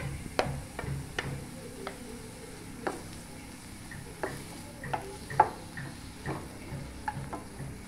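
Chopped onion sizzling in butter in a non-stick frying pan while a wooden spatula stirs it, with irregular clicks and scrapes of the spatula against the pan.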